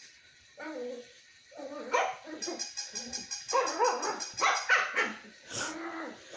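A puppy barking and yipping in a run of short, pitch-bending barks. One bark comes about half a second in, and the barking runs on almost without a break from about a second and a half in.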